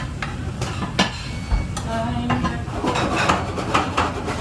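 Commercial kitchen clatter: plates, pans and metal utensils knocking and clinking several times, over a steady low rumble of background kitchen noise.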